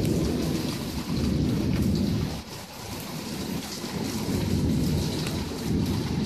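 Heavy rain pouring down, a steady hiss of drops, over a low rumble that swells, eases for about a second midway, then swells again. It is downpour of the kind brought by a typhoon.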